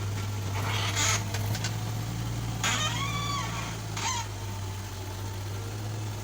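JCB 1CX backhoe's diesel engine running with a steady low hum. A bird calls over it: one rise-and-fall call about three seconds in, with short harsh calls about a second in and again near four seconds.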